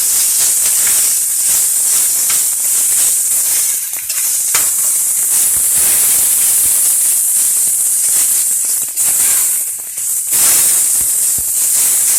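Grated potato and ginger sizzling in hot mustard oil with onions in a frying pan, a steady high hiss broken by a few sharp clicks.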